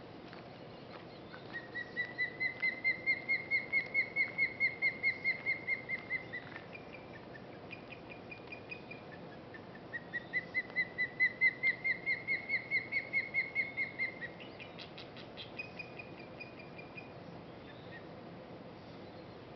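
Adult osprey giving warning calls at an intruder near its nest: two long runs of rapid whistled notes, about five a second, the first lasting about five seconds and the second about four. Between and after them come fainter, shorter runs of higher notes: the fledglings echoing her.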